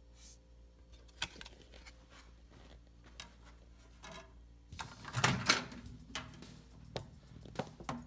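Microwave oven door being opened: a loud clunk of the latch and door about five seconds in, among scattered clicks and knocks of handling.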